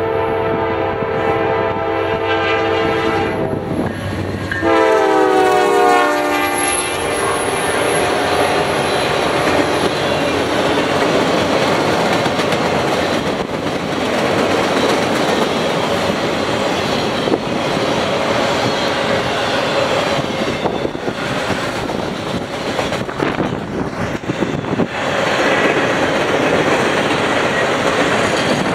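Norfolk Southern freight locomotive's air horn blowing a chord that drops in pitch as the engine passes, about four to five seconds in. After that, the empty welded-rail train's flatcars roll by with steady wheel noise and rail clatter.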